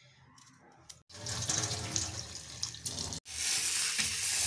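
Tap water running into a bowl in a steel sink while hands swish dill leaves in it. It starts abruptly about a second in and becomes steadier and louder from about three seconds in.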